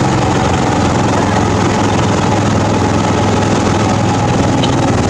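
An engine running steadily at an unchanging speed, with a constant hiss over its low hum.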